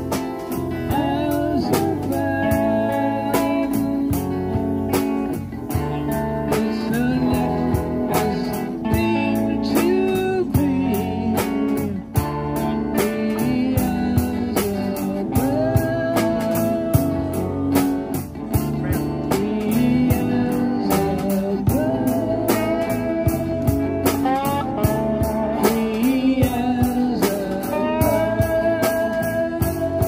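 A small live rock band playing: drum kit, electric and acoustic guitars, with a lead melody that glides between notes.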